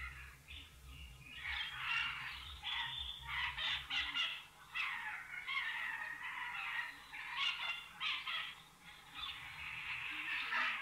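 Animal calls, high and wavering in pitch, coming in irregular runs with short gaps.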